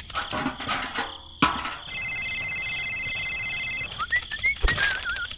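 A string of added sound effects: a sharp click, then a steady high trill for about two seconds, then a few short rising whistled chirps and a wavering whistle.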